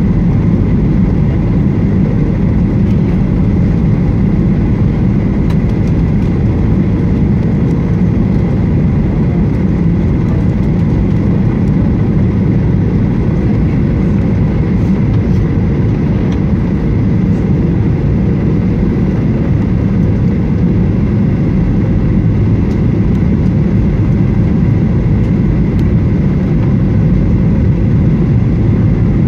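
Steady cabin noise inside a Boeing 737-800 on final approach with flaps down: the low drone of its CFM56 engines and the rush of air over the wing, with a faint steady high tone on top.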